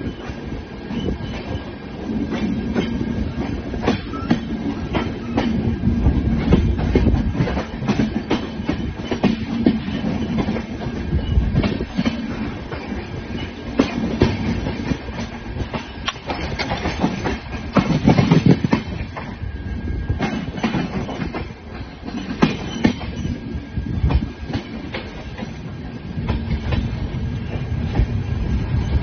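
Passenger train running at speed, heard from an open doorway on the coach: continuous rumble with wheels clattering irregularly over rail joints.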